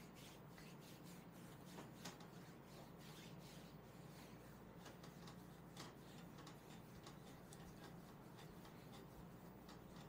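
Hands kneading and rubbing a bare thigh slick with massage cream: faint skin-on-skin rubbing with scattered small clicks and smacks, a couple slightly louder about two and six seconds in.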